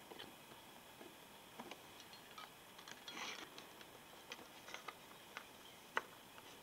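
Small plastic Littlest Pet Shop figurines being handled and set down on a table: faint scattered clicks and taps, with a brief rustle about three seconds in and a sharper click about six seconds in.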